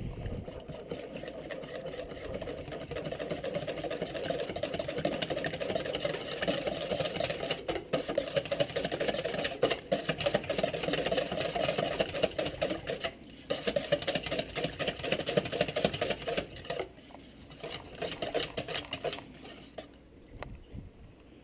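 Wire whisk beating a leche flan custard mixture of egg yolks and milk in a stainless steel bowl, in fast, even strokes. It stops briefly twice in the second half and thins out near the end.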